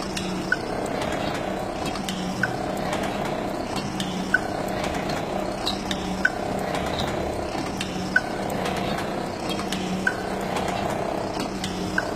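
Fully mechanical cigarette filling machine running: a steady mechanical hum with a sharp click repeating evenly about every two seconds.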